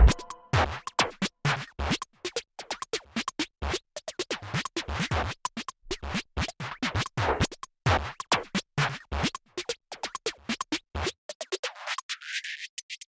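Background electronic music in a sparse break: rapid short clicks, scratch-like cuts and light low thumps in an uneven rhythm. Near the end the bass is filtered out in a rising sweep.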